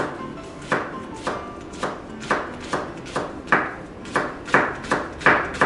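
Kitchen knife slicing a Japanese long green onion (negi) on a plastic cutting board: a steady run of knocks of the blade on the board, about two a second, a little quicker near the end.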